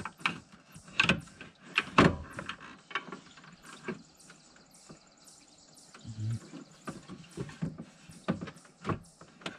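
Irregular clunks, knocks and scraping of a radiator being worked down into its mounts in the truck's radiator support, the loudest knocks about one and two seconds in.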